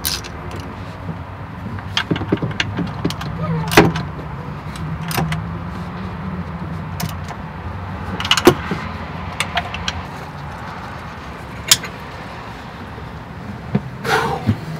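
Scattered sharp clicks and knocks of hand tools working on the engine under the removed doghouse cover, the loudest about four seconds in and again past eight seconds, over a steady low hum.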